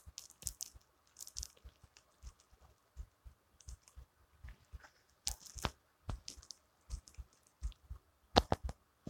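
Faint, scattered small clicks and crackles close to the microphone, irregular and spread through the whole stretch, with a small cluster near the end.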